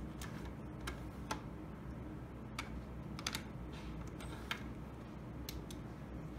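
Irregular sharp plastic clicks and taps from an Exdia fluorescence analyzer's cartridge tray being opened with its button, loaded with a test cartridge and pushed shut. A low steady hum runs underneath.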